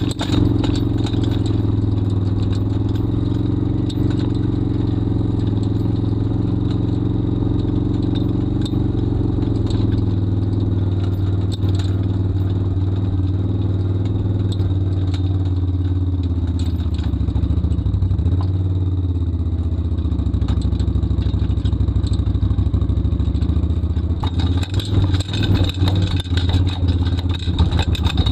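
Can-Am Outlander ATV engine running steadily at a low, even speed while towing an empty Kellfri forestry trailer, with the trailer's metal frame clattering and rattling over rough ground. The engine eases off briefly about two-thirds of the way through, and the rattling gets louder near the end.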